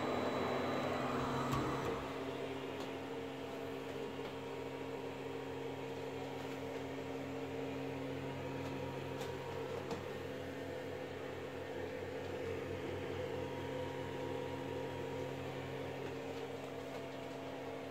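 3D printer's cooling fans running with a steady hum and a few steady tones, the hotend fan still spinning while the hot end cools after a finished print. Slightly louder and noisier for the first two seconds.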